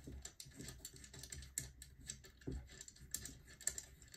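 Light, irregular clicks and taps of a screwdriver and small metal parts as screws are being taken out of the attachment's metal frame.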